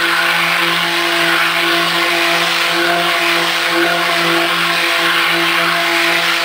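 Stick blender running steadily in raw soap batter of oils and lye water in a plastic bucket, its motor giving an even hum and whir.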